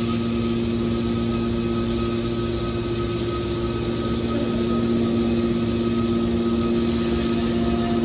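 Hydraulic scrap metal baler's power unit running: a steady hum with a constant thin whine from the motor and pump.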